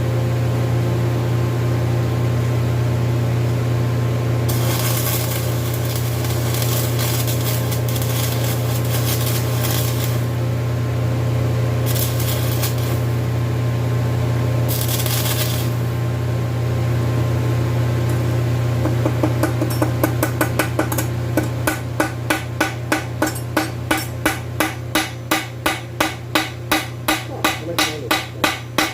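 A steady electrical hum runs throughout. Several bursts of hiss lasting a few seconds come in the first half. In the last third, a long run of sharp hammer strikes on metal comes at about two a second.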